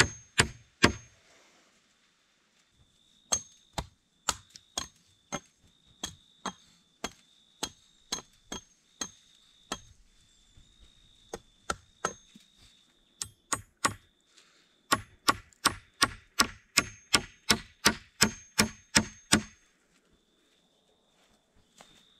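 Hatchet blows chopping into green wooden poles on a stump: runs of sharp strikes, each with a short bright metallic ring, coming faster near the end before they stop.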